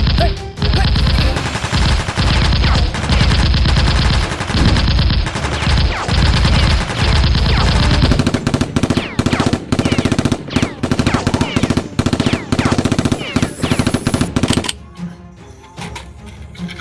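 Rapid automatic gunfire in repeated bursts, then scattered single shots. About two seconds before the end it drops to quieter background music.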